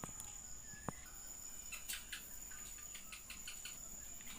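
A faint, steady, high-pitched insect trill, like a cricket, with a sharp click about a second in and a short run of light clicks in the middle, a steel spoon tapping a steel mixer jar as sugar is spooned in.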